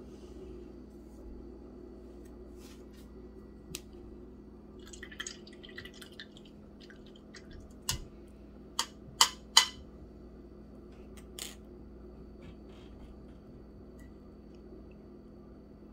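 Small clicks and taps of things being handled. Three sharp knocks come in quick succession about nine seconds in and are the loudest sounds. A steady low room hum lies underneath.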